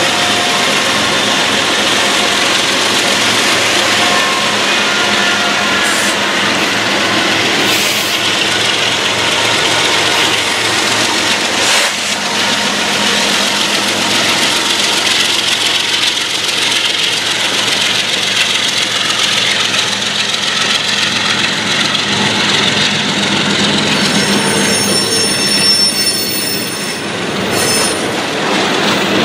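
A freight train passing at close range: a string of GE diesel locomotives goes by, then double-stack intermodal container cars with steady wheel-on-rail noise. A high wheel squeal sounds for a few seconds near the end.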